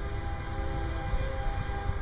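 Air horn of an approaching CSX freight locomotive, still out of sight, sounding one chord of several notes for about two seconds and stopping near the end.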